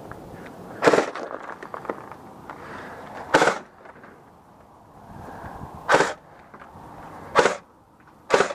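Airsoft electric rifle (AEG) firing single shots close to the microphone, five sharp snaps a few seconds apart.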